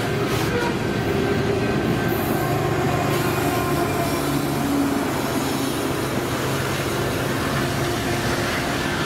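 Freight train rolling past: hopper cars rumbling over the rails, then a BNSF GE ET44C4 diesel locomotive, the trailing pusher unit at the end of the train, goes by with a steady engine drone about halfway through.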